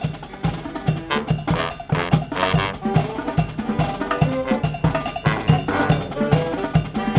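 Live marching brass band playing, with sousaphones, trumpets, saxophone and bass drum over a steady beat.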